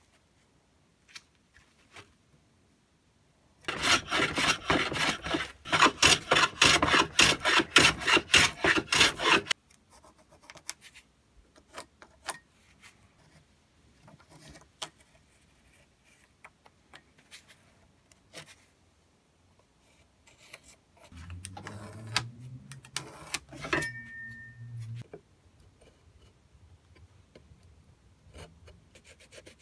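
A hand tool works wood with quick, evenly repeated rasping strokes for about six seconds, then light handling ticks. A low hum runs for about four seconds shortly before the end.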